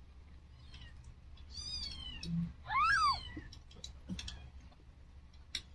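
Newborn kittens mewing: two short, high-pitched cries that rise and fall, about halfway through, the second louder than the first.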